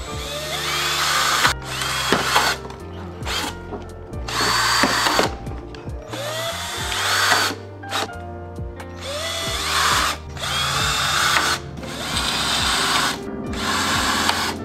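Power drill run in about eight short bursts, its motor whining up in pitch at the start of each, drilling holes in a body-kit part.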